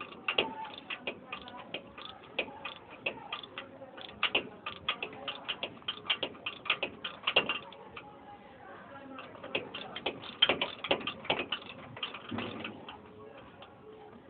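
Hand tools working on metal under the truck: quick, uneven clicks, several a second, with a short lull about eight seconds in.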